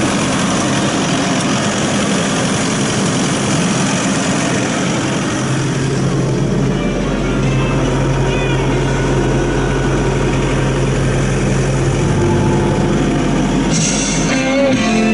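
Mahindra mForce 105S tractor's diesel engine idling steadily, heard from beside the wheel and then from inside the cab. Its low hum grows stronger about halfway through. Music comes in just before the end.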